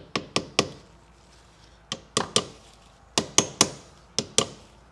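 Small hammer tapping on a metal bushing-installation tool on the engine's shaft stub, knocking the tool loose after the brass bushing has been seated. It gives about a dozen sharp metallic taps in quick groups of two to four, each with a short ring.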